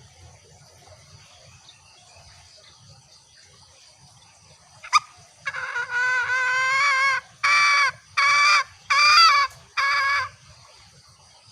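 Green junglefowl calling: one long pitched note of about a second and a half, then four short notes in quick succession. A sharp click comes just before the calls, and insects trill steadily and faintly behind.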